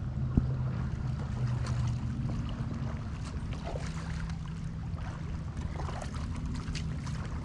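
Small waves lapping and splashing right at a microphone floating at the water's surface, with scattered little water clicks over a steady low rumble, and one sharp tick about half a second in.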